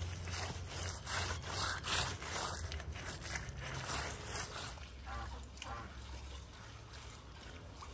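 Gloved hand rubbing wet clay over the rough clay-and-straw wall of a tandoor oven: a run of quick scraping strokes, loudest in the first half and fainter after about five seconds.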